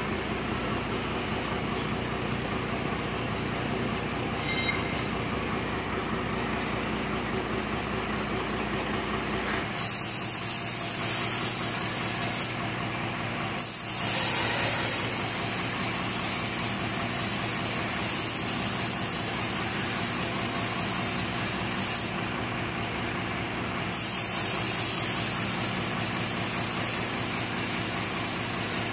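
Compressed-air paint spray gun hissing in three long bursts with short breaks as paint is sprayed onto a truck's steel body panels, the hiss starting suddenly about ten seconds in. A steady mechanical hum runs underneath throughout.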